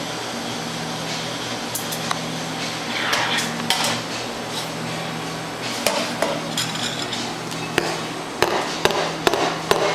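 Espresso machine steam wand hissing into milk in a stainless steel pitcher, over a steady machine hum, with a swell in the hiss about three seconds in. The hum drops away about six seconds in, and a series of sharp metallic knocks and clanks follows.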